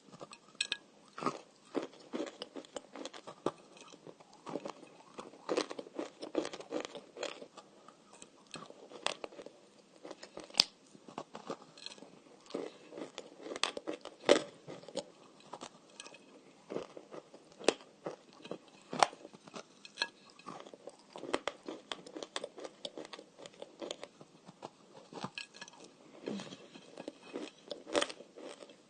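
Dry, crumbly edible clay being bitten and chewed close to the microphone: irregular sharp crunches and crackles, coming in quick clusters with short pauses between.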